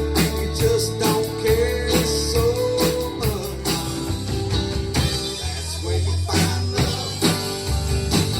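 Live band playing a song, with drums, bass and guitar. A held lead note bends in pitch through the first few seconds over a steady beat.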